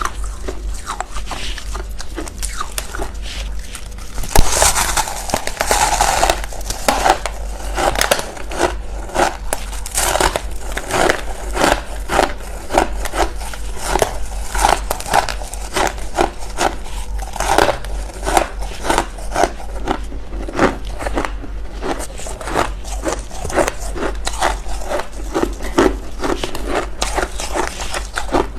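Freezer frost being bitten and chewed close to the microphone: a long run of crisp crunches, about two a second, loudest around four to six seconds in, over a steady low hum.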